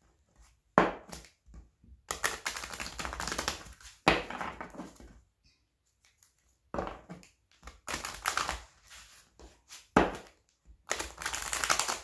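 A deck of large oracle cards being bridge-shuffled by hand: several rattling riffles of the cards, each lasting up to about two seconds with short pauses between, the longest about two seconds in and near the end.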